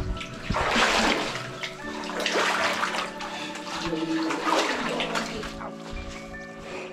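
Water sloshing and splashing in several uneven surges as a person wades through chest-deep water in a flooded mine tunnel.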